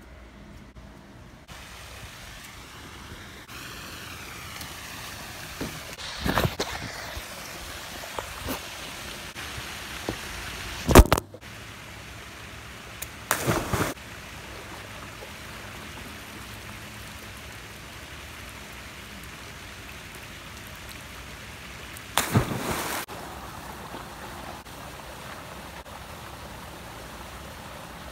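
Swimming-pool water, a steady rush and sloshing, broken by four louder splashes spread through.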